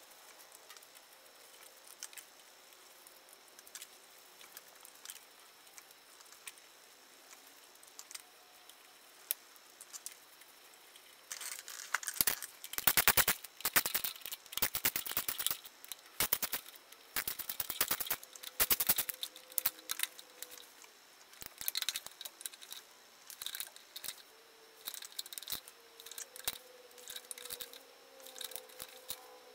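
Hand ratchet clicking in quick repeated runs as the bolts of the harmonic balancer on an Audi 2.8 V6 are run in. Only a few faint metal clicks come in the first third, then the ratchet runs go on in bursts.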